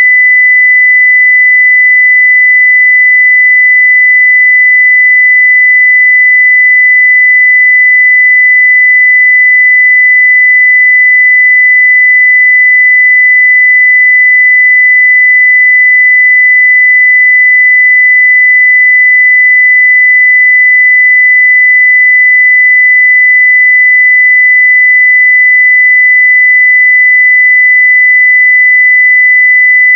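Steady 2 kHz sine-wave test tone at full level (0 dB), one pure pitch held without change.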